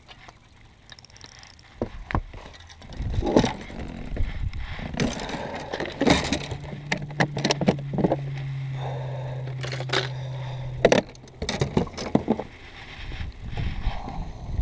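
Knocks, clunks and rattles of gear being handled on a bass boat, with a small electric motor humming steadily for about four and a half seconds in the middle, which stops at a sharp click.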